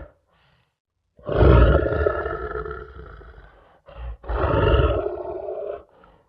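Lion roaring: after about a second of quiet, a long roar that fades away, a short grunt, then a second roar that cuts off abruptly.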